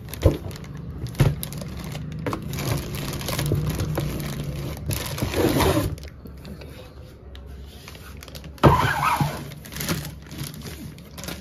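Clear plastic bag crinkling and cardboard box rustling as a boxed electric kettle wrapped in plastic is handled and lifted out. Two sharp knocks come near the start, and there is a sudden loud crackle near the end.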